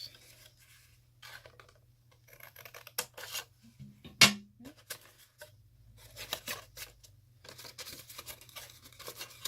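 Scissors snipping short slits into heavy 12x12 cardstock, with the rustle of the sheet being handled and turned between cuts; one sharp loud snap about four seconds in.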